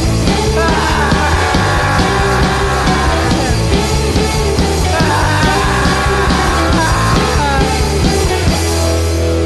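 Garage psych rock music played by a full band, with a steady beat. Near the end the beat stops and held notes ring on.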